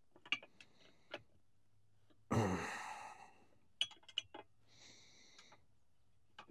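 Light metallic clicks of a small wrench on a carburetor nut and linkage as the accelerator pump diaphragm nut is snugged up. A loud breathy exhale comes about two seconds in, and a softer breath near the end.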